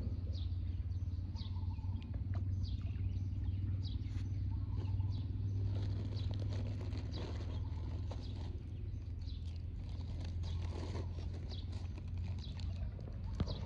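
Birds chirping in short, repeated falling calls over a steady low rumble.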